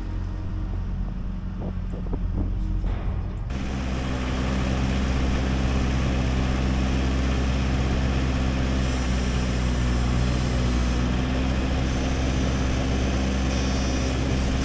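Case IH Farmall 45A tractor's diesel engine running steadily at idle. The sound changes abruptly about three and a half seconds in, at an edit, to a louder and steadier engine run.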